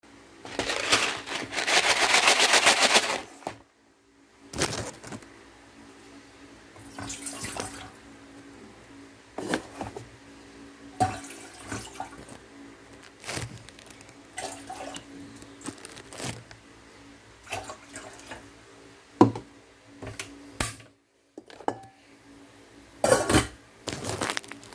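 Water running for about three seconds near the start, then scattered knocks and clatters of kitchen things being handled. Near the end a short loud burst as the gas stove burner under the pot is lit.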